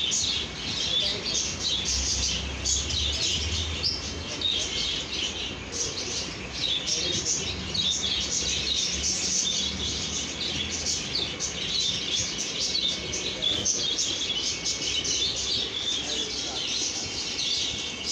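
Many small birds chirping at once, a dense, continuous chatter of short high chirps, over a low steady hum.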